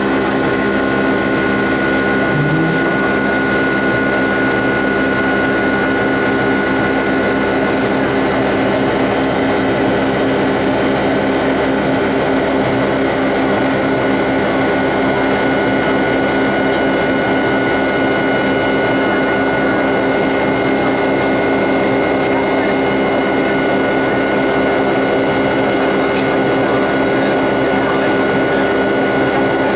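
Boeing 757's jet engines heard from inside the passenger cabin during the climb after takeoff: a loud, steady rush with a high, steady whine and a low hum held throughout.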